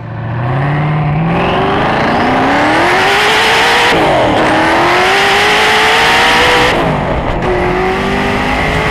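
Hennessey Venom GT's twin-turbo V8 accelerating hard at full throttle, its pitch climbing steadily. It drops sharply at two upshifts, about four seconds in and near seven seconds, and climbs again after each.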